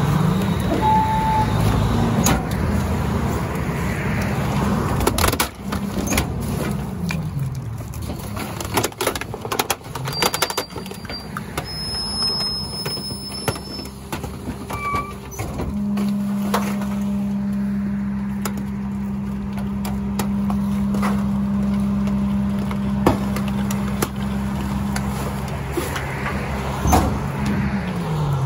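Miller rear-load garbage truck running its hydraulic packer: the engine revs up to drive the blade as it sweeps and compacts trash bags in the hopper, with knocks and clunks from the mechanism. It is held at raised revs for about ten seconds, then drops back near the end.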